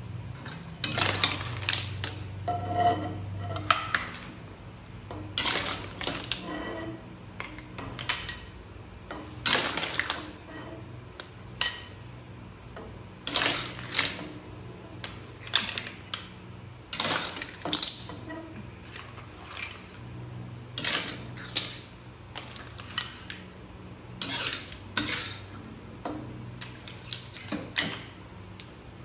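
Spatula scraping around a wok and clam shells clattering against the wok and a plate as cooked clams in sauce are scooped out, in irregular strokes every second or two.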